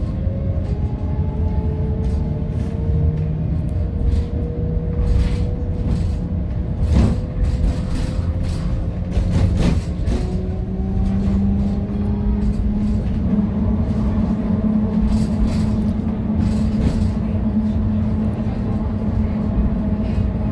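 Old GVB Amsterdam tram 840 running, heard from inside the car: a steady low rumble of the wheels on the rails under a faint motor whine that glides slowly in pitch and rises as the tram picks up speed after about ten seconds. A few sharp knocks come around seven and ten seconds in.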